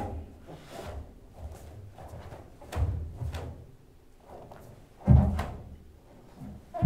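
Movements of a bo kata with a long wooden staff: bare feet thud and stamp on a wooden stage floor and the staff swishes through the air. The loudest thud comes about five seconds in, with others near three seconds and at the very end.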